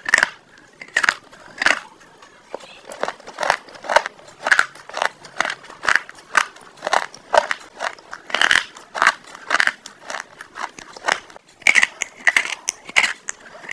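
Close-miked biting and chewing of a hard, crunchy food, with irregular sharp crunches about two a second.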